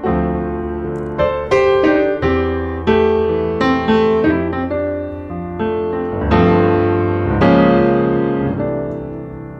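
Piano music: a melody of struck notes over low held chords, each note starting sharply and fading away.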